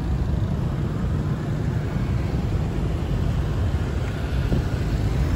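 Steady rumble of motor scooter and car traffic on a city street, mixed with wind on the microphone, recorded on the move.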